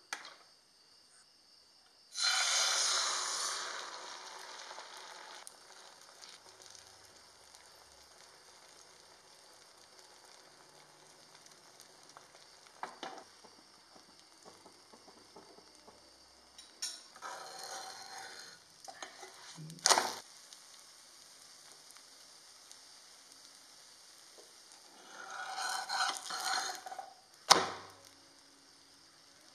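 Egg and bread-cube omelette mixture frying in hot oil in a non-stick pan. A loud sizzle starts about two seconds in and dies down over a few seconds to a faint steady frying hiss. Later there are further short bursts of sizzling and a couple of sharp knocks.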